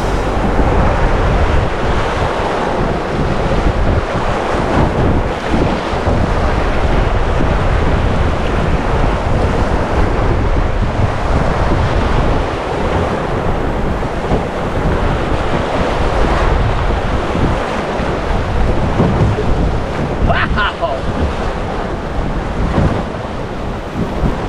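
Green River water rushing and churning steadily around a drift boat, with wind buffeting the microphone.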